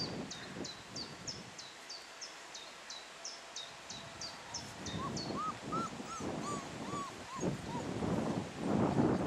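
Four-week-old Weimaraner puppies whimpering: a run of about seven short rising-and-falling whines about five seconds in. Under them, for the first half, a bird repeats a high falling chirp about twice a second.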